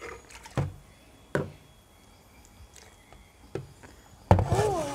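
Three or four light knocks of plastic cups and jugs being handled and set down on a tabletop. A voice starts loudly near the end.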